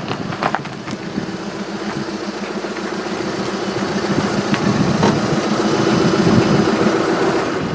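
Car engine running with a steady low hum that slowly grows louder, then eases off near the end.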